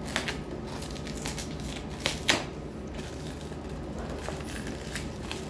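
Crinkling of a plastic-wrapped parcel being handled and opened with a box cutter, with a few sharp clicks and scrapes; the loudest click comes a little over two seconds in.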